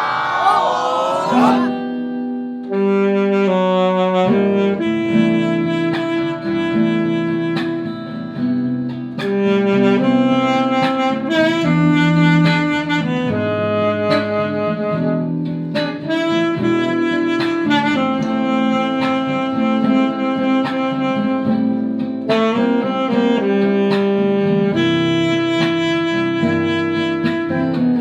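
An instrumental ensemble playing a tune in held notes, starting right after a count-in about a second and a half in.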